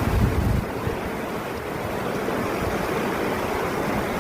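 Steady rushing roar of a waterfall. Wind buffets the microphone for about the first half second.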